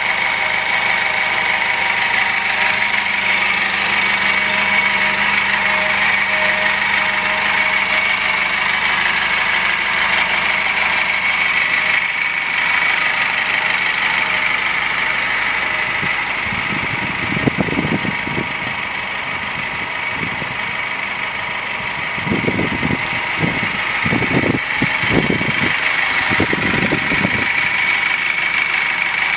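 GAZelle Next's 2.8-litre four-cylinder diesel idling steadily. A few short, dull low rumbles come in about halfway through and again near the end.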